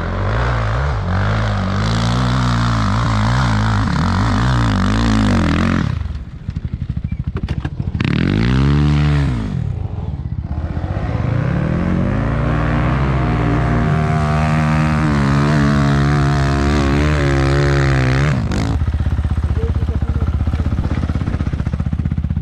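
Enduro motorcycle engine revving, its pitch rising and falling with the throttle. It eases off around six seconds in, revs up and back down once, then climbs and holds high revs for several seconds before dropping back to idle near the end.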